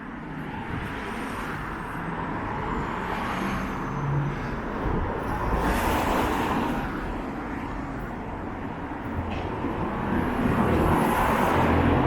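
Town street noise with traffic passing and wind buffeting the microphone; the noise swells about halfway through and again near the end.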